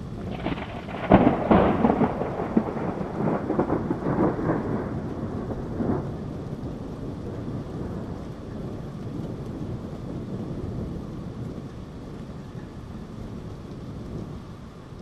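Thunderstorm: a peal of thunder crackles loudly for the first several seconds, sharpest about a second in, then rolls on as a long low rumble that slowly fades, over steady rain.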